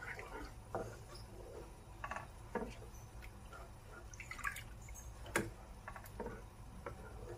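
Wooden spoon stirring a thick milk-and-flour sauce with shrimp in a frying pan: faint wet sloshing with light clicks of the spoon against the pan. Milk is poured in and drips from the bowl about halfway through.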